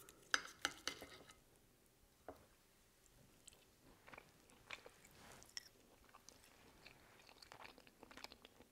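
Faint sounds of eating: a few sharp clicks of a metal knife and fork against a china plate in the first second or so, then soft, sparse chewing of a bite of baked chicken breast.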